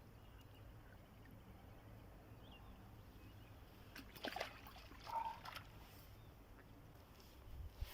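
Faint outdoor ambience with a steady low rumble, and two short noisy splashes or rustles about four and five seconds in.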